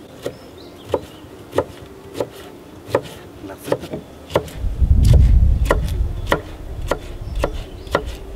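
Kitchen knife slicing a peeled potato into thin strips on a wooden cutting board, the blade knocking the board about once every two-thirds of a second. A loud low rumble swells up in the middle and fades toward the end.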